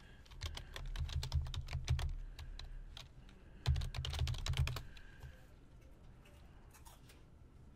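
Typing on a computer keyboard in two quick runs of key clicks, the first about two and a half seconds long and the second about a second long, ending about five seconds in.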